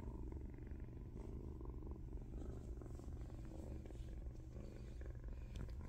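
Tabby kitten purring steadily and softly.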